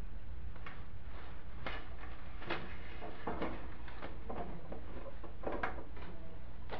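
Light knocks and scrapes of decor items being handled and set down on stacked wooden crates: about half a dozen soft, scattered strikes over a steady low hum.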